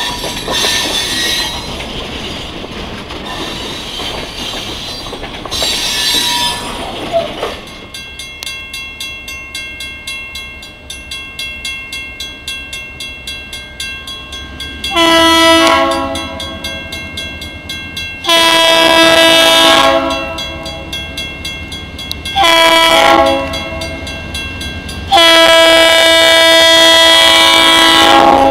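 Freight cars rolling past with wheel squeal for the first several seconds. Then diesel locomotive 3617 approaches and sounds its multi-tone horn in the grade-crossing pattern: two long blasts, one short, then a long one still held at the end, the warning for a crossing whose signals are out of service and flagged.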